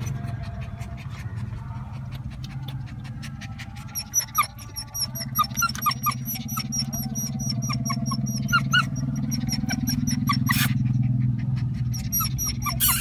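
Labrador puppy whimpering in short, high squeaks from about four seconds in, over rapid clicking and a steady low hum.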